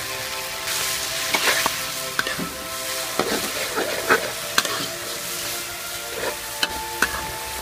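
Squid and shrimp stir-frying in curry sauce in a wok: a steady sizzle, with the spatula scraping the pan and knocking against it several times.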